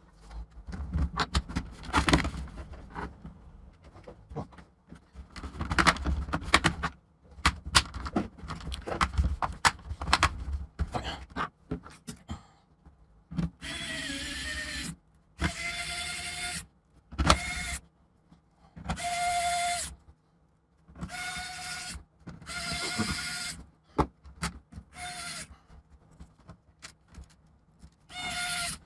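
Clicks and knocks of handling laptop parts, then a small electric screwdriver running in about eight short bursts with a steady motor whine, driving screws.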